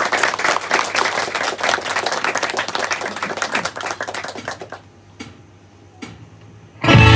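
Small audience applauding, the clapping dying away about four seconds in. After a short hush with a couple of faint clicks, an acoustic guitar starts playing loudly near the end.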